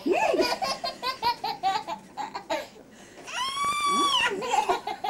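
A toddler laughing in quick, rapid bursts, then a long high-pitched squeal a little over three seconds in, followed by more giggling.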